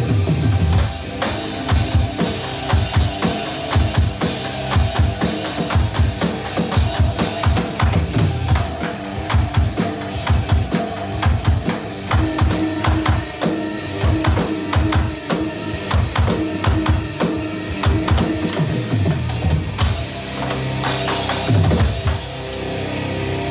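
Rock drumming on an electronic drum kit, with steady bass drum, snare and cymbal hits, played over a heavy rock backing track. The drums drop out at the very end.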